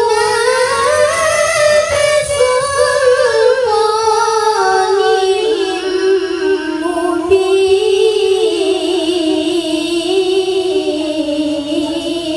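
A boy's high voice reciting the Qur'an in melodic tilawah style into a microphone: one long unbroken ornamented phrase that slowly steps down in pitch.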